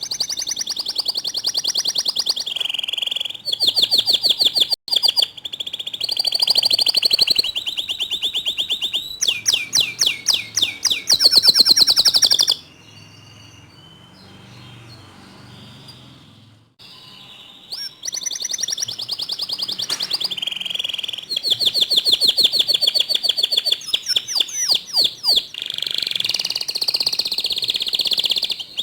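Domestic canary singing a loud song of fast trills, each phrase a rapid run of repeated notes that changes to a new pattern every second or two. A quieter break of about four to five seconds comes near the middle before the trilling resumes.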